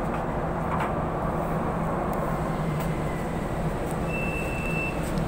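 MRT-3 metro train carriage running, heard from inside: a steady rumble with a low hum. About four seconds in, a high steady beep sounds for under a second.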